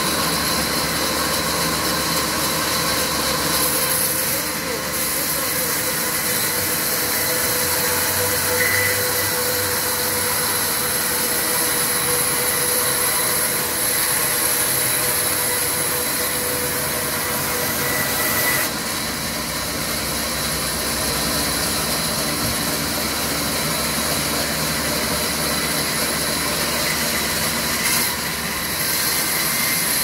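Sawmill saw running steadily, an even machine hum and hiss that shifts briefly in level a few times.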